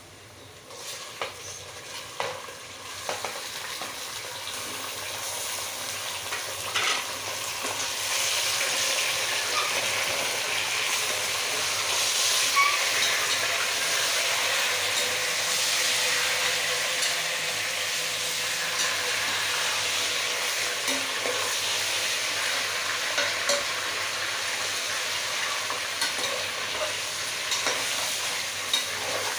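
Raw chicken pieces frying in hot oil with browned onions in a pressure cooker, a sizzle that builds over the first several seconds and then holds steady. A few knocks of the stirring spoon against the pot.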